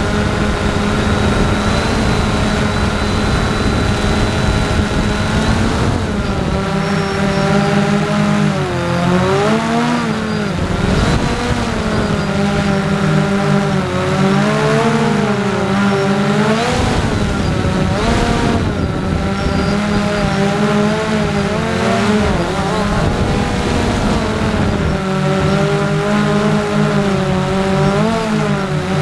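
Storm X3 quadcopter's electric motors and propellers whining, recorded from the onboard camera; the pitch rises and falls repeatedly as the throttle changes. Wind rushes over the microphone for the first six seconds or so.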